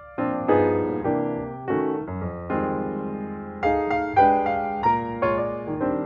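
Background piano music: chords and single notes struck one after another, each left to ring and fade.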